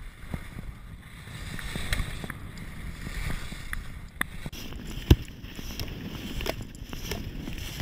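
Skis running and scraping over packed snow, with wind buffeting an action camera's microphone and a few sharp knocks, the loudest about five seconds in.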